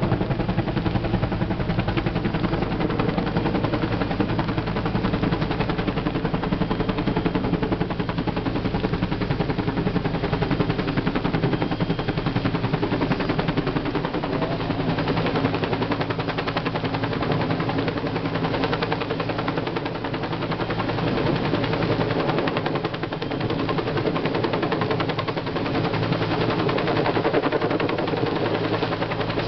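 Firefighting helicopter carrying a slung water bucket flying overhead, its rotor blades beating in a fast, steady chop.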